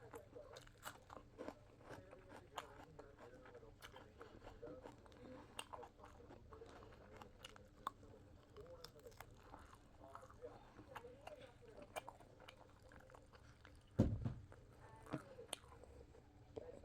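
Close-up chewing and crunching of food, with many small mouth clicks and smacks, and a single louder dull thump about fourteen seconds in.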